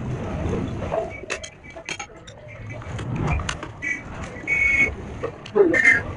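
Metal clinks and clicks of hand tools working on the exposed clutch of a Bajaj Pulsar 150 engine: a socket tool is turned on the clutch hub bolts and metal parts knock together. A couple of short, high squeaks come in the second half.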